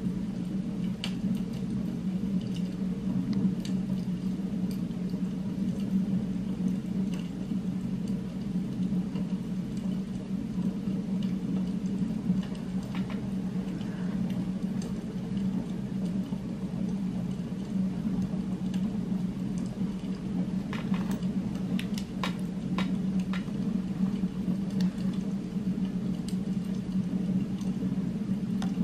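Steady low background drone, an added ambient noise track, running unchanged with a few faint clicks about two-thirds of the way in.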